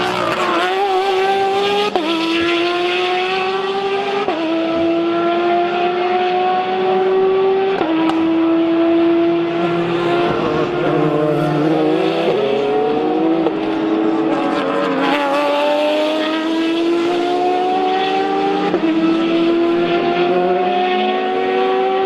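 Race car engines accelerating away, the pitch climbing steadily and dropping abruptly several times as they shift up through the gears.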